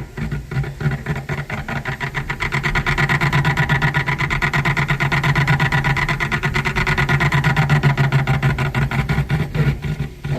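Electrolux clothes dryer running with a fast, even rhythmic noise over a low hum: the abnormal noise the dryer is making.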